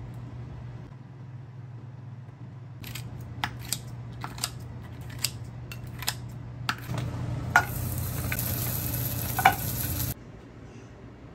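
Kitchen scissors snipping kimchi in a ceramic bowl, about eight sharp snips over four seconds. Then bulgogi dumplings sizzling in a frying pan for about three seconds, cut off abruptly near the end.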